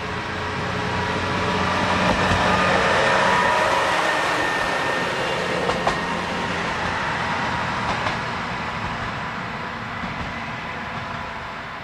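Mizushima Rinkai Railway MRT300 diesel railcar passing close by. Its engine and running noise grow to their loudest about three seconds in, then fade as it pulls away, with a few short wheel clacks around the middle.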